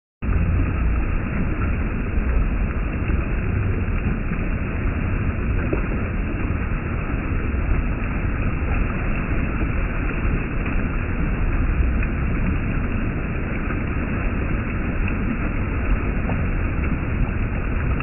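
Stream water spilling over a rock ledge into whitewater: a steady rushing noise with a deep rumble underneath.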